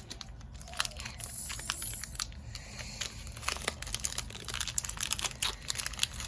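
Pokémon TCG booster pack's foil wrapper crinkling and tearing as it is opened by hand, a dense run of small crackles.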